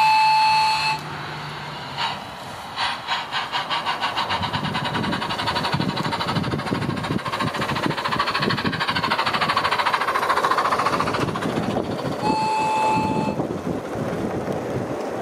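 Electronic sound unit of a battery-powered, radio-controlled gauge 1 steam locomotive. A whistle toot lasting about a second, then chuffs that start slowly about three seconds in and quicken as the loco gets going, and a second whistle toot near the end.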